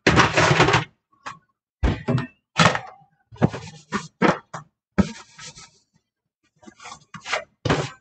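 Plastic food containers and dishes being handled and put away in a kitchen cabinet: a string of irregular knocks and thunks with short scuffing rustles, pausing briefly about six seconds in.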